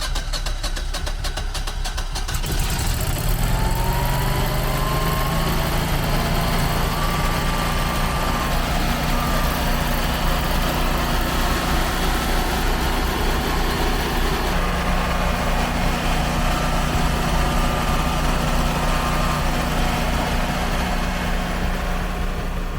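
Air-cooled home standby generator (Generac-built Honeywell) cranking with rapid clicking. It catches about two to three seconds in, speeds up over a couple of seconds, and settles into a steady run.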